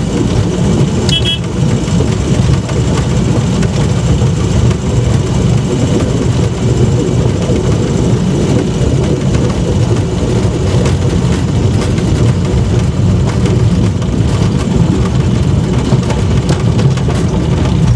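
Rail-converted Land Rover's engine running steadily as it travels along narrow-gauge track, heard from inside its cab as a continuous low rumble. A brief high-pitched squeak about a second in.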